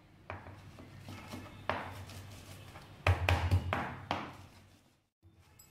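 Kitchen clatter: sharp knocks of pots and utensils that ring and fade, with a quick run of loud strikes about three seconds in, over a low steady hum.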